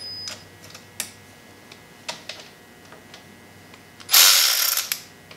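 Socket ratchet wrench working a handlebar bolt: a few single clicks, then about a second of fast, loud ratcheting about four seconds in. The bolt turns easily because it was already loose.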